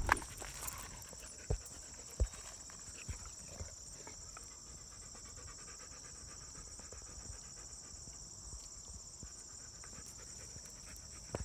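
Insects calling in a steady high drone, with a few soft thuds in the first few seconds.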